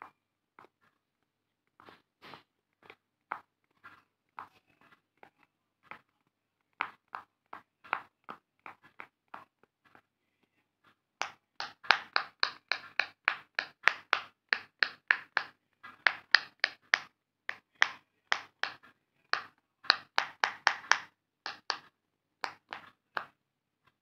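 Silicone pop-it fidget toy bubbles being pressed in by fingers, each giving a short pop. Scattered, faint pops at first, then from about halfway a quick run of louder pops, several a second, as the hand works across the toys.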